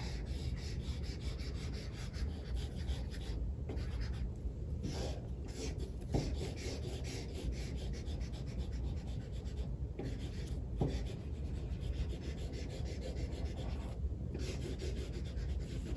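Felt-tip washable marker rubbing back and forth on watercolour paper in quick colouring strokes, with a few brief pauses.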